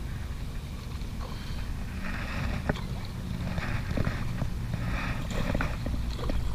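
Wind rumbling on the microphone while a hooked fish splashes and thrashes at the surface near the bank, with a few sharp clicks along the way.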